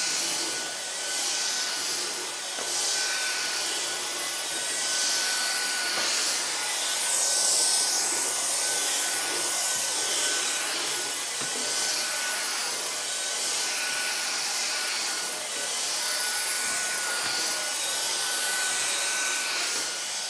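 Dyson DC44 cordless stick vacuum running: a continuous rush of air with a high whine held at one steady pitch, its level swelling and easing a little.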